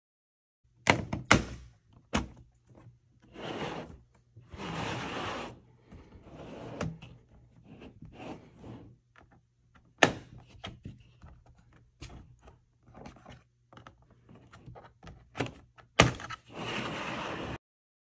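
Plastic pry tool working round the seam of a Dell G15 laptop's plastic bottom cover: sharp snaps as the cover's clips let go, a few in the first couple of seconds, one midway and one near the end, with plastic scraping and rubbing between them.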